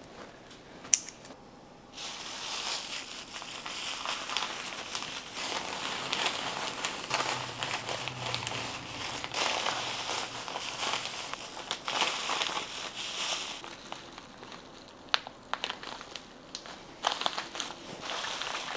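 Plastic wrap and a zipper freezer bag crinkling as plastic-wrapped portions of raw meat are handled in the bag, with a sharp click about a second in. The crinkling eases off for a few seconds about two-thirds through, then picks up again near the end.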